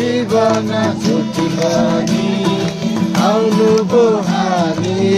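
Music: a Christmas carol sung with instrumental accompaniment.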